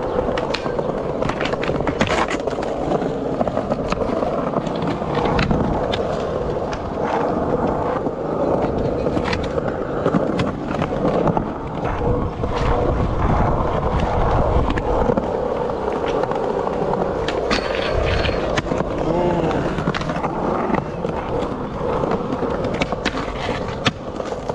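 Skateboard wheels rolling steadily over rough concrete, with sharp clacks of boards striking the ground scattered throughout.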